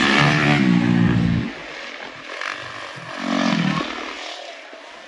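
Motocross bike engine on the throttle in two bursts: one lasting about a second and a half at the start, a shorter one around three seconds in.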